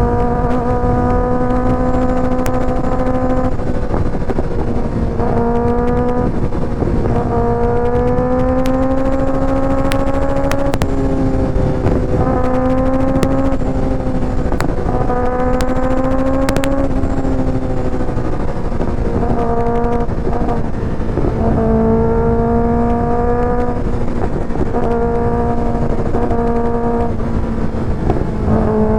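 2024 Kawasaki ZX-6R's inline-four running through an aftermarket IXIL exhaust while riding. The engine note holds steady or climbs gently and breaks off briefly every few seconds before picking up again.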